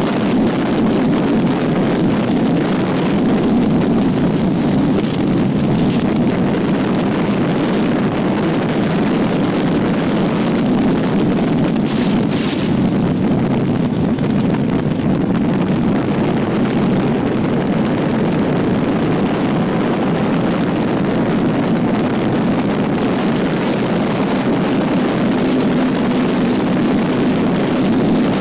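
Wind buffeting the camera's built-in microphone at highway speed, a steady loud rush, with the Triumph Trident 660's inline three-cylinder engine running steadily underneath.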